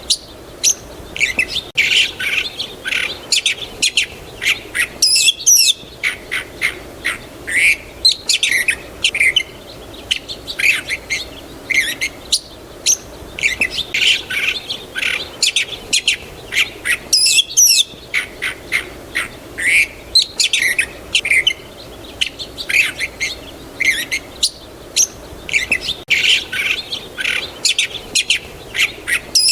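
A chorus of small birds chirping, many short quick chirps and calls overlapping, with brief lulls that recur about every twelve seconds as the recording loops.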